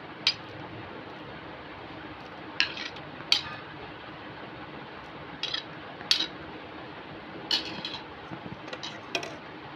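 A utensil clinking against glass dishware while fruit pieces are added to a bowl of milky dessert mix: several sharp clinks every second or so, over a steady faint low hum.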